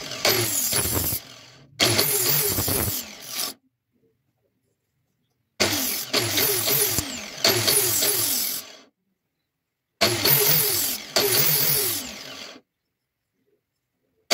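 Angle grinder running while a steel cleaver blade is ground against its disc, its pitch repeatedly sinking. The sound comes in separate stretches of a few seconds, with dead silence between them.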